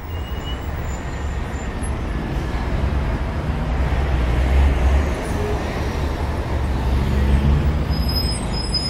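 City street ambience: a steady wash of traffic noise with a low rumble from passing vehicles, easing off near the end.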